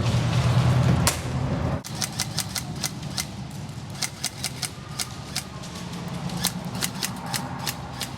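Airsoft guns firing: sharp snapping shots, some single and some in quick runs, at irregular spacing from about two seconds in. A low steady hum fills the first two seconds.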